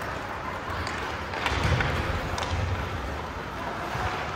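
Ice hockey play: a steady wash of skates on the ice with several sharp clacks of sticks and puck, the loudest cluster about a second and a half in.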